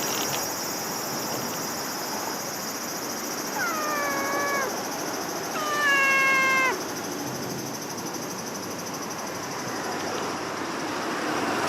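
A cat meowing twice, the second meow louder and longer, over a steady background rush.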